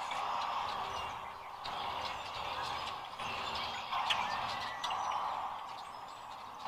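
Dense chorus of many sandhill cranes calling at once, its loudness rising and falling.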